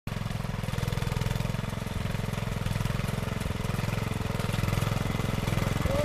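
Walk-behind rotavator's small engine running steadily under load as its tines churn and break up turf in the soil. The drone grows slightly louder as the machine comes closer.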